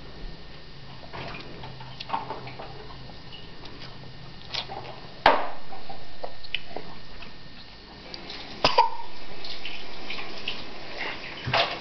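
A small child eating noodles by hand: scattered wet slurps and mouth smacks, with two sharper clicks about five seconds in and near nine seconds.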